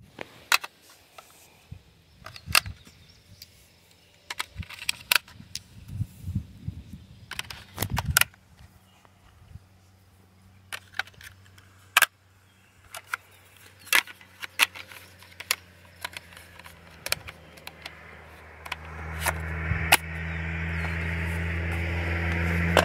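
Scattered sharp plastic clicks and small rattles of AA batteries being handled and snapped into an RC transmitter's battery compartment. Near the end a steady low rumble with a hiss comes up and becomes the loudest sound.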